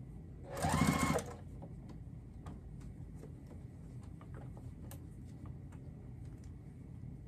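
Electric sewing machine running one short burst of stitches, under a second long, starting about half a second in, its motor whine rising in pitch as it speeds up. Afterwards only a few faint ticks as the fabric is handled.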